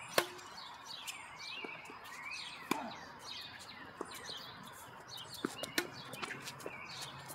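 Tennis ball struck by rackets and bouncing on a hard court during a doubles rally: a series of sharp pops at irregular intervals, the loudest just after the start. Birds chirp throughout.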